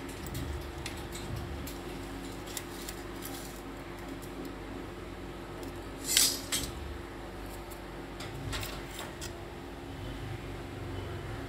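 Metal telescopic drawer channel being slid and pulled apart by hand: light metallic clicks and rattles, with one sharp clack about six seconds in and a few more clicks about two seconds later.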